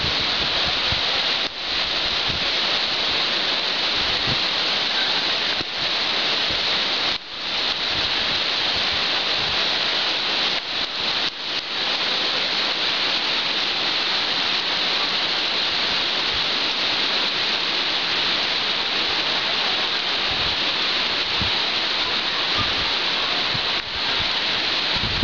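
Rain shower falling steadily: an even hiss, dipping briefly a few times.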